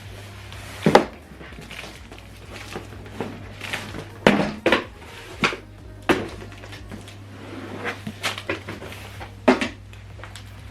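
Cardboard box of a soundbar being opened and handled: irregular knocks, taps and scraping of cardboard, over a steady low hum.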